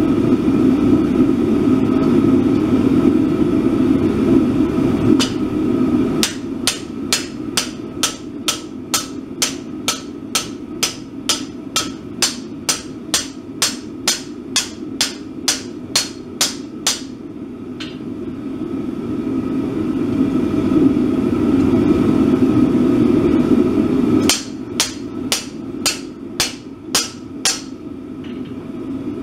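Hand hammer striking hot steel on an anvil: a run of sharp, ringing blows at about two a second, a pause, then a shorter run of about eight blows near the end. A steady low rushing noise fills the stretches without hammering.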